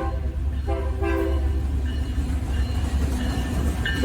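Diesel freight locomotive's older-style K3 five-chime air horn sounding in separate blasts, two about a second apart, then fainter held chords and another strong blast near the end. A steady low rumble of the train runs underneath. It is typical of a UP SD59, though the horn sounds more like one on a GP-series 'Jeep'.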